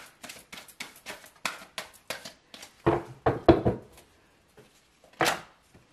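A tarot deck being shuffled by hand: a quick run of soft card slaps and riffles, several a second, then a few louder thumps and one more sharp thump near the end.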